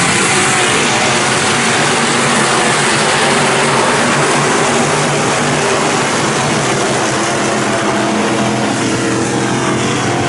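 IMCA SportMod race cars' V8 engines running on a dirt oval, a loud, steady blend of several engines with no one car standing out.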